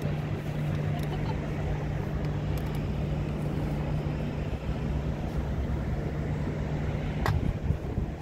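Steady low engine hum with a constant deep drone and background rumble, and one sharp click a little after seven seconds in.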